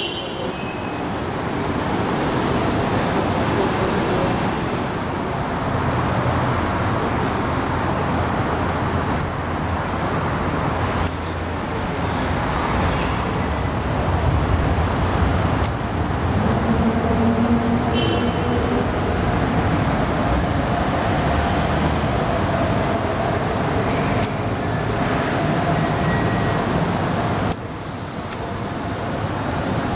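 Steady drone of car engines and traffic noise, with a deeper engine hum from about six seconds in until about twenty-four seconds.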